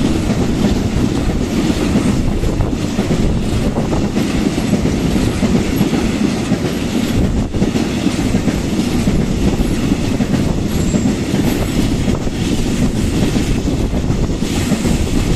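Freight train of empty Sggrss articulated container flat wagons rolling past close by, a steady, loud rumble of wheels on the rails.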